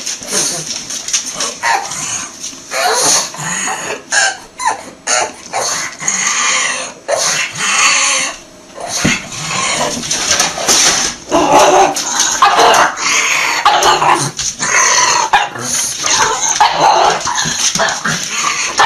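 A pug vocalising excitedly in a rapid run of short barks and yaps, with brief gaps, louder in the second half.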